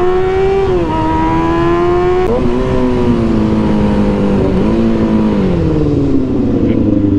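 Kawasaki ZX-6R inline-four engine with an M4 GP exhaust, accelerating hard with the revs climbing. The pitch drops sharply twice in the first few seconds as it is shifted up. The revs then hold steady before falling away as the throttle is rolled off near the end.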